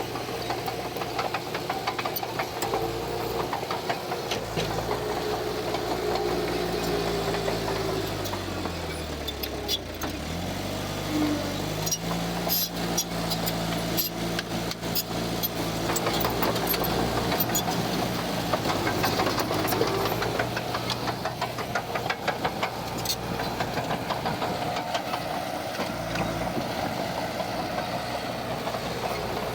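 Heavy earthmoving machine's diesel engine running; its pitch drops about ten seconds in and climbs back up, followed by a run of sharp clanks and rattles.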